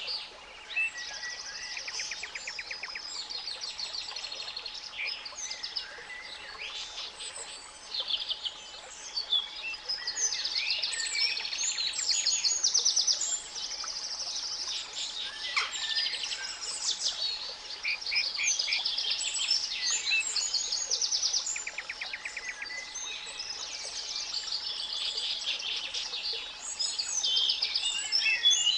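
Many spring songbirds chirping and trilling at once, in a dense chorus that never lets up, over a faint steady pure tone at 852 Hz and a soft hiss of masking noise.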